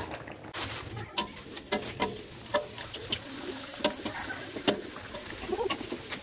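Hot oil sizzling in a wok as kerupuk crackers deep-fry and puff up, with sharp crackles and clicks, starting about half a second in.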